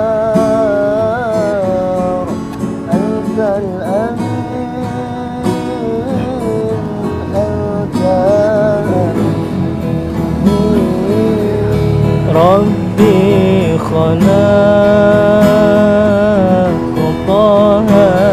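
A voice singing a sholawat in long, held notes that bend and wander, over a strummed acoustic guitar.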